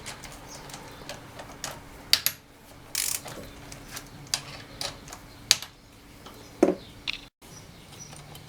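Metal engine parts and hand tools clicking and clinking, with a few sharper knocks at irregular intervals, as the camshaft and its sprocket are taken out of a scooter engine's cylinder head. A faint steady hum sits underneath.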